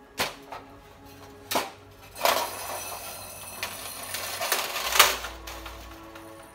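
Clinks and knocks as the ceramic end cap and the glass tube of an electric heater's resistance element are handled, then a rattling scrape lasting about two and a half seconds as the tube is worked out of the heater, ending in one sharp click. The element wire inside the tube has snapped.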